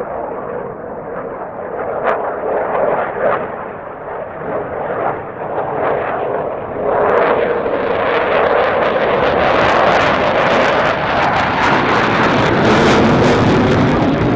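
Jet noise from a Dassault Rafale C's two Snecma M88 turbofans. It is duller and rises and falls at first, grows louder about halfway through, and turns to a loud, harsh crackle as the fighter climbs overhead.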